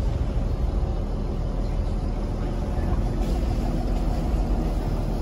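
Mercruiser diesel inboard engine of an Arvor fishing boat running steadily at slow speed, a low, even rumble heard from on board.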